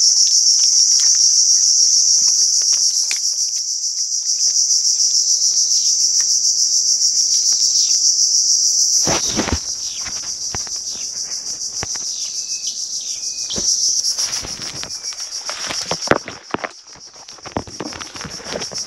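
A dense, steady chorus of insects, a high pulsing buzz that drops somewhat about halfway through. From about halfway on it is joined by rustling of leaves and branches, and by knocks and brushing from hands working among mangrove stems and mud.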